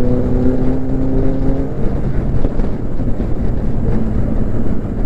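Motorcycle engine running at a steady speed, its tone holding and then fading after about two seconds, under a constant rush of wind on the microphone.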